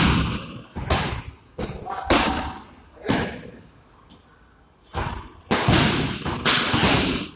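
Kicks and punches landing on leather Thai pads: sharp slapping hits with a short echo off a large hall. There are about ten hits, in two quick flurries separated by a pause of about two seconds.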